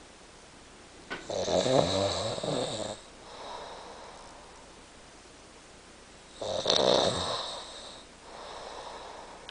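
A sleeping man snoring: two loud snores about five seconds apart, each followed by a quieter breath.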